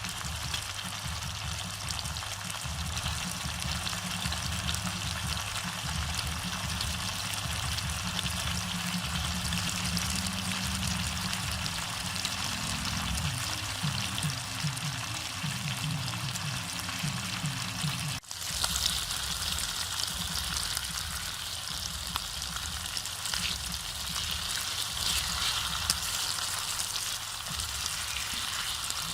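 Pork ribs frying in hot oil, a steady crackling sizzle; it becomes brighter and louder after a cut about 18 seconds in.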